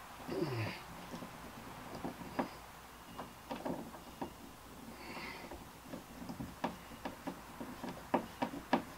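Scattered light clicks and knocks from hands working screws into a plastic kayak hull, with no steady motor sound.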